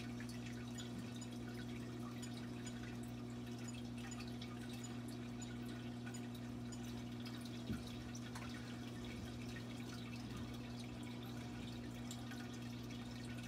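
Steady low electrical hum with faint dripping and trickling water, as from a running reef aquarium, with a single soft click about eight seconds in.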